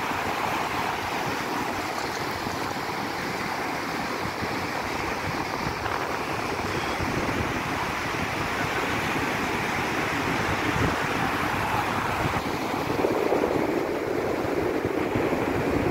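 Ocean surf washing over a shallow sandy beach: a steady rush of breaking waves and foam, a little louder in the last few seconds.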